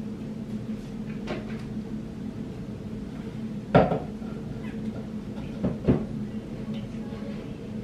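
A few sharp knocks and clatters of small hard decorations being handled and put in place: the loudest about four seconds in, then two close together about two seconds later, over a steady low hum.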